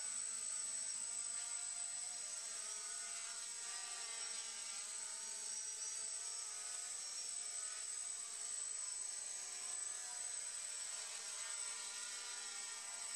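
Quadcopter's four MT2213 1100 kV brushless motors and propellers buzzing in flight, the pitch wavering slightly as the throttle shifts, with a steady high whine over it.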